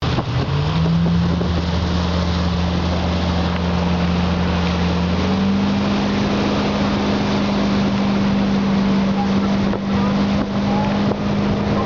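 Motorboat engine running while towing a tube, its pitch rising in the first second and stepping up again about five seconds in as the engine speeds up, over the rush of the churning wake and wind on the microphone.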